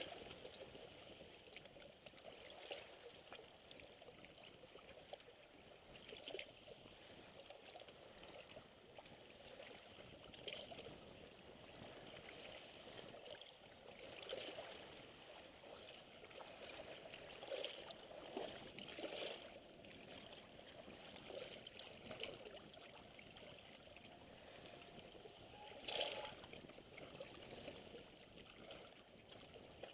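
Small waves lapping and splashing against shoreline rocks: a faint, irregular wash of little splashes, with one louder splash about 26 seconds in.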